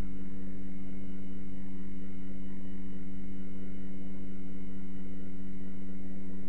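Steady electrical hum: a few unchanging low tones over a low rumble, with no other sound.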